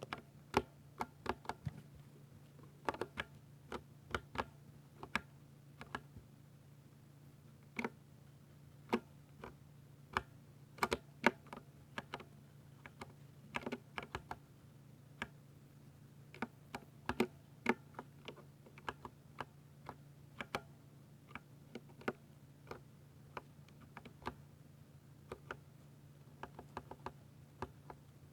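Typing on a Ducky mechanical keyboard with silver switches: irregular keystrokes, a few a second with short pauses between runs. A steady low hum sits underneath.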